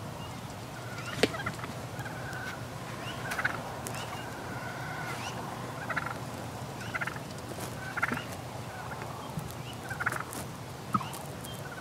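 Wild turkeys calling in the field, short calls coming every second or so. A sharp click comes about a second in.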